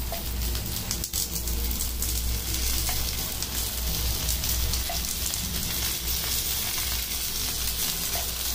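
Masala-coated pomfret slices shallow-frying in oil on a cast-iron dosa griddle: a steady sizzle with scattered crackles.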